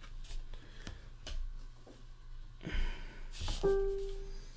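Trading cards and a pack wrapper being handled and shuffled: light clicks and rustles, with a louder rustle a little before three seconds in. About three and a half seconds in, a single piano-like note sounds and holds for most of a second.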